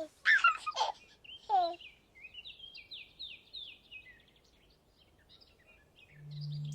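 Birds singing, a run of quick falling chirps, after a few short high cries that fall in pitch in the first second or two. A low steady tone comes in near the end.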